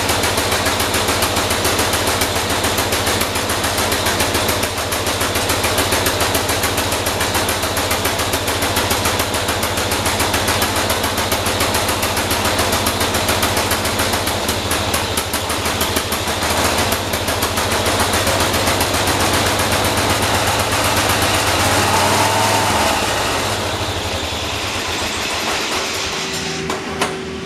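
John Deere 212 garden tractor engine running with fast, even firing pulses while its carburettor is fine-tuned with a screwdriver. Near the end it slows and gets quieter.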